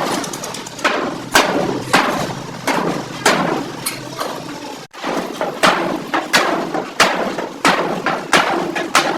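Hammer blows on the sheet-metal body of a Suzuki Bolan van being panel-beaten straight, about two blows a second, each ringing briefly. The strikes are steady and even, as in beating out a dent.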